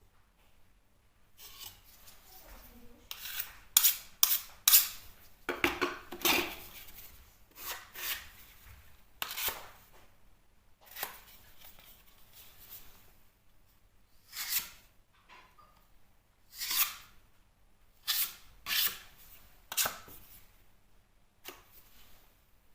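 Metal filling knife scraping and knocking as filler is loaded and worked into holes in plasterboard: a run of short, irregular scrapes and clacks, the loudest a few seconds in.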